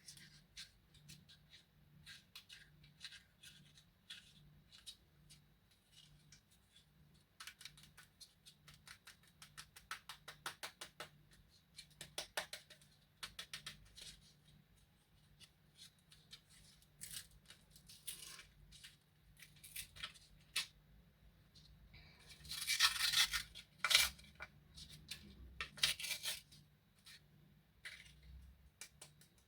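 Close-up handling of candy packaging: many small clicks and plastic crinkles, with a louder tearing rustle of the wrapper about two-thirds of the way through.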